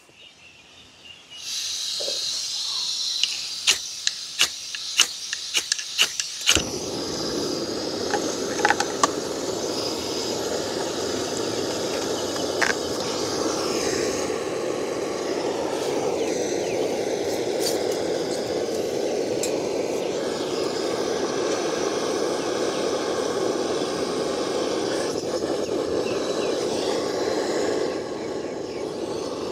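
A backpacking canister gas stove is lit. Gas hisses from the opened valve, and the igniter clicks repeatedly for a few seconds. The burner catches about six seconds in and then burns with a steady rushing sound, dropping slightly in level near the end.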